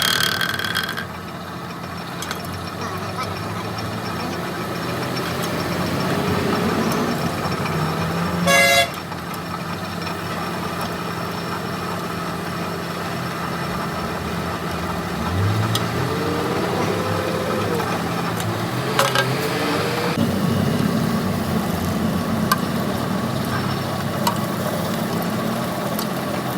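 Vehicle traffic with engines running steadily and short horn toots, one at the start and another about eight and a half seconds in, with engine pitch rising and falling briefly in the second half.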